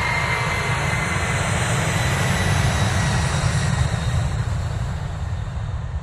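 Twin-engine Boeing 767 jet at takeoff power, accelerating down the runway from a standstill: a loud jet roar with a deep rumble and a faint whine. It swells to a peak about four seconds in, then starts to fade.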